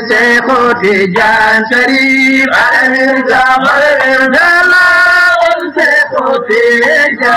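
Chanted singing with long held, wavering notes, with music behind it, louder than the talk around it.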